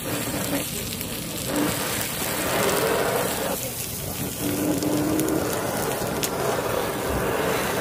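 Snow crab cooking on a street-stall grill: a steady crackling sizzle that swells louder twice, from about one and a half seconds in and again from about four seconds in.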